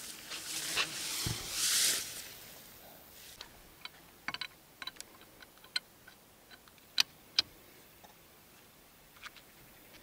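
Scraping and rustling for the first two seconds, then scattered sharp metal clicks and clinks of a wheel brace working the wheel nuts on a car's wheel during a wheel change, the two loudest close together about seven seconds in.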